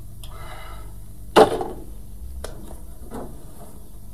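One loud, sharp knock of something hard on a wooden desk about a second and a half in, followed by two fainter knocks, over a low room hum.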